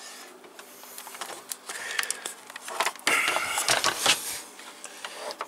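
A VGA cable plug being handled and fitted into the socket on the back of an LCD monitor: an irregular run of plastic clicks, knocks and rustling, busiest and loudest about three to four seconds in.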